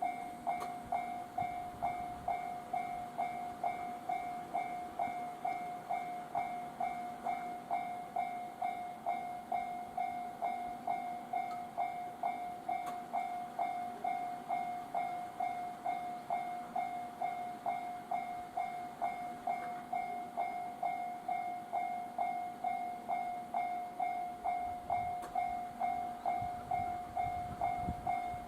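Railway level-crossing warning bell ringing steadily, a single clanging tone struck about twice a second.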